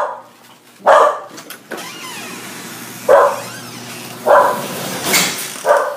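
Pet dog barking excitedly several times in short separate barks, over a steady low hum.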